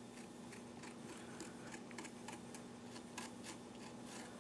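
Kitchen knife scraping the thin brown skin off soft young coconut meat on a cutting board: a run of faint, irregular light scrapes, about three a second.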